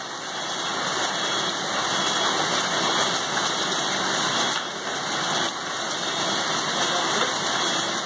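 Hailstorm: hailstones and heavy rain falling steadily.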